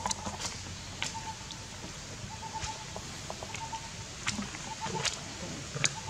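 Outdoor ambience: a bird repeats a short trill at one steady pitch about once a second, with scattered sharp clicks.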